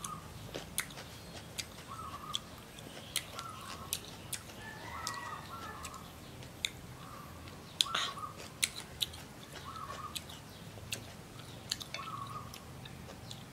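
Close-up crunching and chewing of crisp, deep-fried mole crickets, with sharp irregular crunches every second or so.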